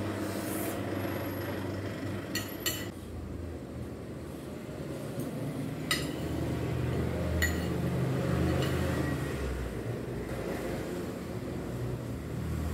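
A metal fork and spoon clink against a plate a few times while eating noodles: two quick clinks about two and a half seconds in, then single ones around six and seven and a half seconds. A steady low hum runs underneath.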